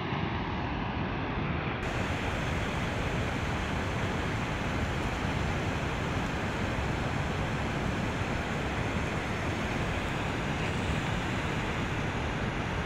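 Steady rush of a flood-swollen river's flowing water, mixed with wind buffeting the microphone.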